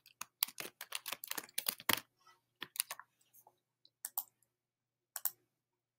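Typing on a computer keyboard: a quick run of keystrokes for about two seconds, then a few separate clicks.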